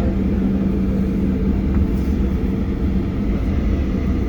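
Steady cabin noise inside a Boeing 737-800 taxiing after landing: the low rumble of its CFM56 engines at taxi power, with a constant hum running through it.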